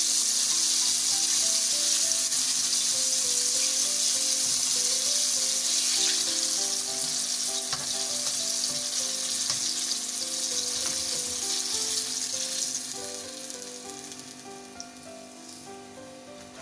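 Cornflour-coated chicken wings deep-frying in hot oil in a wok at the end of their first fry: a steady sizzle with a few light clicks of the spatula. The sizzle dies down over the last few seconds as the wings are lifted out of the oil. Soft background music plays underneath.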